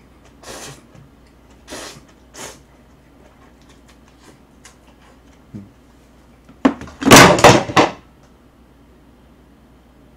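Noodles slurped in a few short sucks in the first couple of seconds. About seven seconds in comes a loud cluster of knocks and rattles as a plastic tub is handled and set down on the table.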